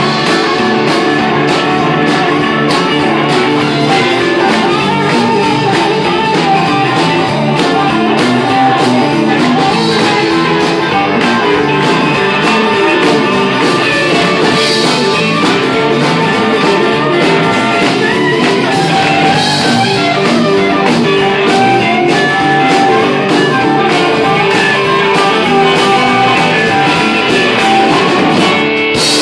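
Live electric blues band playing an instrumental passage: electric guitars over bass guitar, with the drum kit keeping a steady beat.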